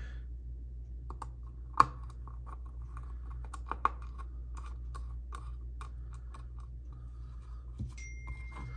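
Small irregular clicks and taps of a metal bit driver turning small Torx screws into a folding knife's handle scale, with one sharper click about two seconds in. A thin steady electronic beep starts near the end.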